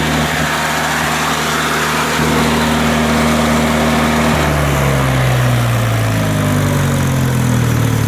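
Sawmill engine, taken off a welder, running steadily while it drives the blade. About four and a half seconds in, its note shifts lower and then slowly falls.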